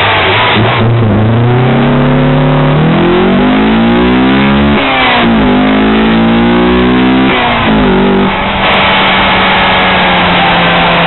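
Honda Accord Euro R's four-cylinder engine accelerating hard, its pitch rising, with two sudden drops where it shifts up a gear, then running at a steady pitch for the last few seconds.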